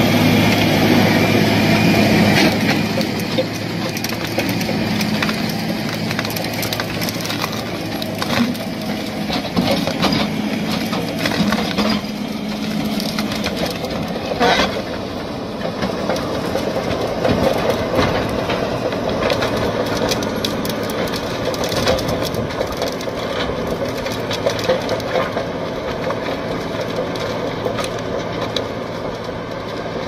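A heavy machine's engine running steadily while it breaks up wood, with irregular cracking and crunching of the wood and one sharp crack about halfway through.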